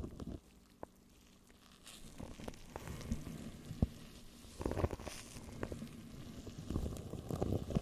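Close-miked ASMR crackling and rustling with scattered small clicks, coming in irregular bursts after a brief quiet moment.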